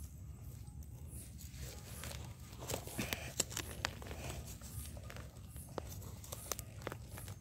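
Knife blade scraping and digging into dry soil and hands brushing away dirt and dry grass while digging out a termite mushroom. Several sharp clicks and scrapes come from about a third of the way in until near the end.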